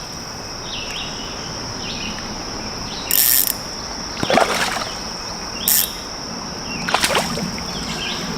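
A hooked freshwater drum splashing at the water's surface about four times while it fights the line. Under it runs a steady high-pitched insect trill, with a few bird chirps.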